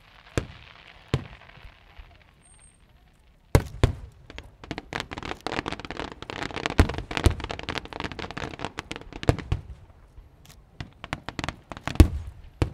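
Fireworks going off: two sharp bangs, a soft hiss, then about three and a half seconds in a dense run of rapid crackling reports that goes on for several seconds before thinning to scattered bangs, the loudest one just before the end.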